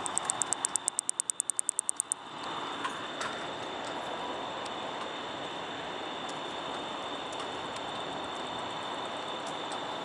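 A Microcentrum katydid (angle-winged katydid) ticking: a fast, even run of about twenty sharp, high clicks over about two seconds, then it stops. A steady hiss runs underneath.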